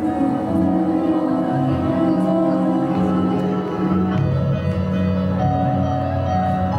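Instrumental music with held notes and chords.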